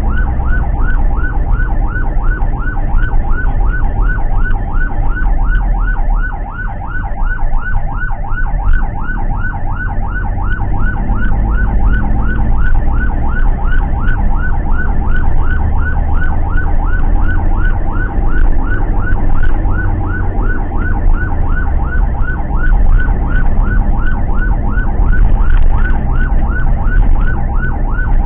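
Ambulance siren on a fast yelp, a rapid train of short rising sweeps at about three a second, heard from inside the ambulance van's cab over steady engine and road rumble.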